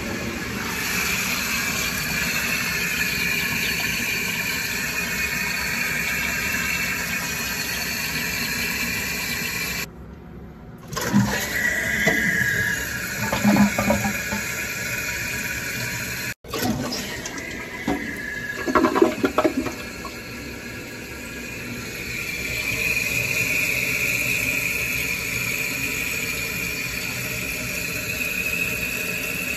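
Kohler 1.28 gpf toilet tank refilling: the fill valve hisses steadily as water runs into the tank around the new drop canister flush valve, after the supply valve is turned back on. A few short knocks come partway through.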